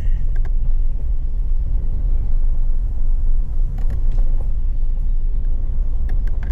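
Four-wheel-drive vehicle driving slowly over a rough dirt trail, heard from inside the cabin: a steady low rumble of engine and tyres, with a few short knocks and rattles.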